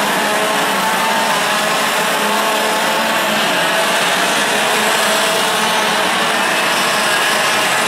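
Several 125cc two-stroke TaG racing kart engines running hard as the pack laps the circuit: a dense, steady buzz of overlapping engine notes, each shifting up and down in pitch as the karts accelerate and lift.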